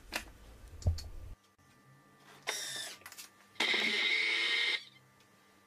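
Thermomix food processor's motor running in two short bursts, a brief one and then a louder one about a second long, as it kneads bread dough.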